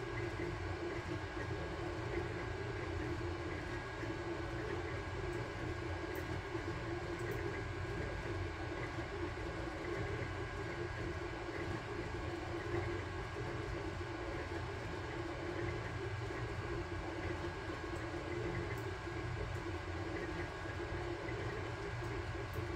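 Sunlu Terminator 3 FDM 3D printer running a print: a steady whir of its cooling fans and stepper motors as the print head and bed move, with a few faint ticks.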